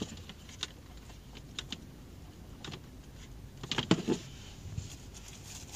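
Light plastic clicks and taps of hands handling a small dashboard-mounted monitor and its cables, with a quick cluster of louder clicks and knocks about four seconds in.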